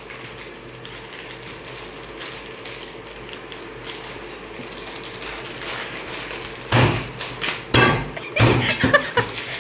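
Plastic snack wrappers crinkling and tearing as packets are worked open one-handed, faint at first, then loud crackles mixed with knocks on the table in the last three seconds.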